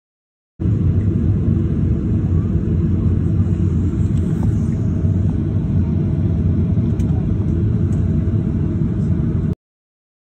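A steady low rumble that cuts in and out abruptly, with a few faint clicks.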